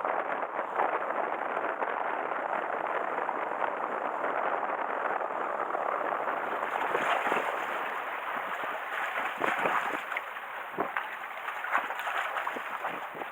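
Strong wind buffeting the microphone over the sound of waves. About halfway it gives way to quieter water lapping among concrete breakwater blocks, with scattered small splashes.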